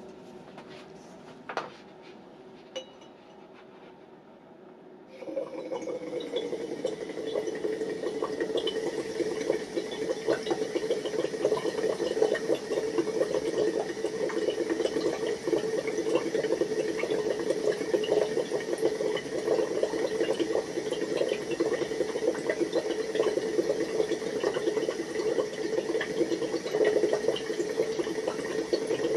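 Carbon dioxide gas bubbling steadily through a hose into a flask of water, starting about five seconds in. Earlier there is a single click.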